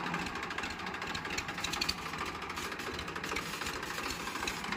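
Massey Ferguson 1035 DI tractor's three-cylinder diesel engine running steadily at low revs with a rapid, even clatter as the tractor is driven slowly and turned.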